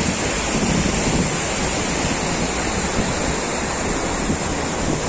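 Steady rush of river rapids, with wind buffeting the microphone.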